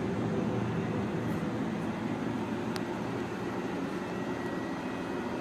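Large Binns & Berry TB engine lathe running: a steady mechanical rumble with a faint, steady high whine above it, and a light tick near the middle.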